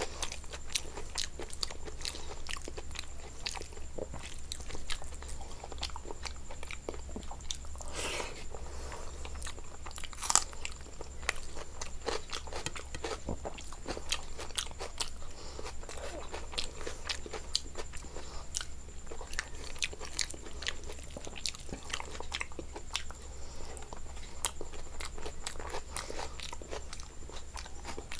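Close-up chewing and biting of food: irregular crisp crunches and mouth sounds, with a few louder crunches, over a steady low electrical hum.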